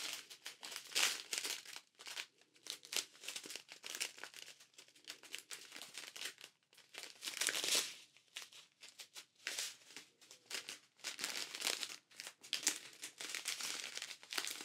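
Crinkling of clear plastic drill packets from a diamond painting kit as hands hold and turn them, in short irregular crackles that come and go.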